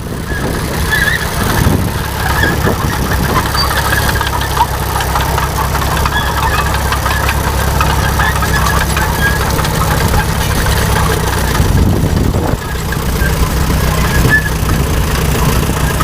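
Tractor engine running steadily with a low, even hum, dipping briefly near the end.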